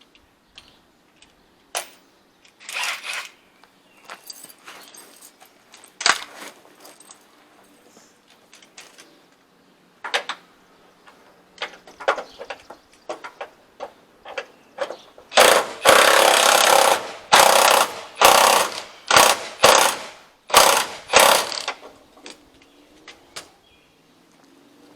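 Electric impact wrench hammering in a run of short bursts, one longer than the rest, in the second half, running down the crane base's mounting bolts through socket extensions. Before it, scattered metal clicks and clanks of sockets and extensions being handled and fitted.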